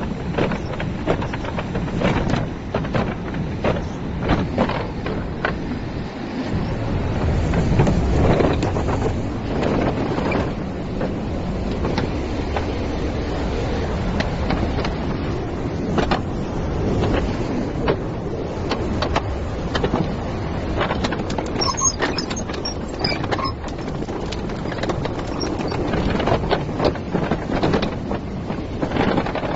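Caterpillar 320D excavator working: its diesel engine runs steadily under frequent short knocks and clatter from the machine, swelling louder for a couple of seconds about a quarter of the way in.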